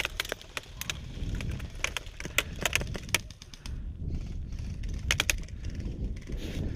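Scattered single cracks of airsoft gunfire, a few irregularly spaced shots with a tight pair about five seconds in, over a low, steady rumble.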